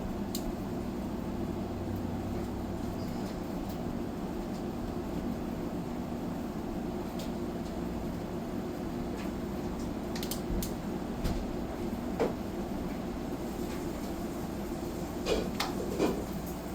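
1996 Sanitaire S663 upright vacuum cleaner running with a steady hum, with several short clicks and knocks in the second half.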